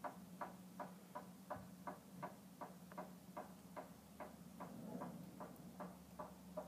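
Engine oil glugging out of a quart bottle into a small engine's crankcase, in faint, even glugs about two or three a second over a low steady hum.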